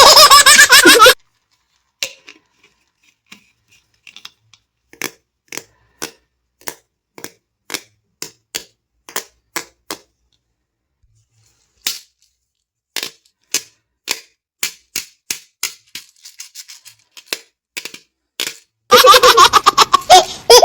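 Bar soap being cut: a long run of separate crisp snaps, about two a second with short pauses. Loud baby laughter briefly at the start and again near the end.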